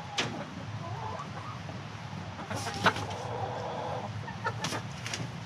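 Chickens clucking, with a longer drawn-out call about three seconds in. A few short, sharp scratchy noises come through the clucking, the loudest near the middle.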